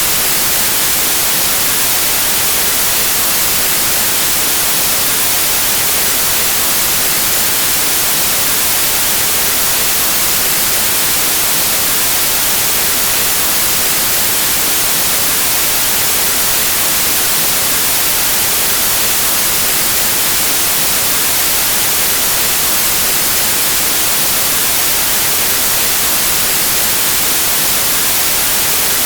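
Pure white noise: a steady, even static hiss with no change or events, strongest in the high frequencies.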